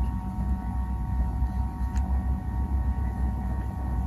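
Steady low rumble with a faint, even hum above it, and one faint click about two seconds in.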